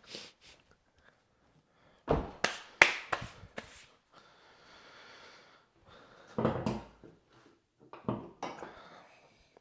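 Clunks and knocks of objects being handled in a small room, in three clusters, with a soft hiss between the first two.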